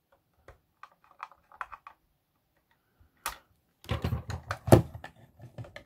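Side cutters snipping excess 3D-printed plastic off a box in small clicks, then clicks and knocks of the hard plastic box being handled, thickest in the last two seconds with one sharp knock just before the end.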